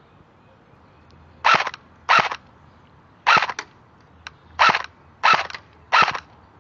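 M4 airsoft rifle firing single shots at close range, six sharp cracks in about five seconds, unevenly spaced.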